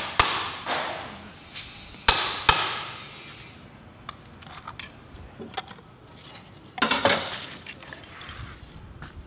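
Metal hand tools clanking and knocking on a Subaru EJ20 short block while its cylinder access plugs are worked loose: sharp strikes with a brief ring, one at the start, two about two seconds in and a cluster near seven seconds.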